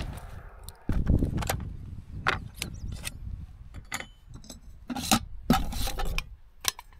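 Clicks, knocks and scrapes of a Fire-Maple camping stove cook kit being handled on a wooden picnic table, as the metal pot, lid and gas canister are taken apart and fitted together. Wind rumbles on the microphone underneath.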